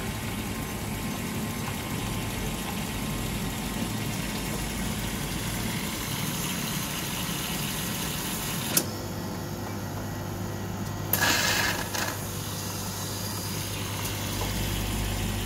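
Dr.Coffee bean-to-cup coffee machine running steadily with a low hum as it dispenses frothed milk and then coffee for a flat white. There is one sharp click a little under nine seconds in, and a short burst of hissing noise about eleven seconds in.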